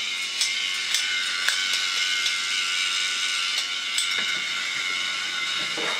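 Small geared motor of a 3D-printed single-wheel bump-and-go robot drive running with a steady high whine, with a few sharp clicks from the gear train scattered through it. The builder puts the catching down to a little burr in the mechanism.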